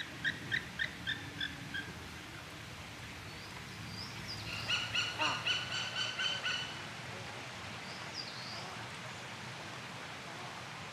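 White-tailed eagle calling: a run of about eight short yelping notes, some four a second, fading over the first two seconds, then a faster, louder chattering series midway. A small bird gives a few thin high notes in between.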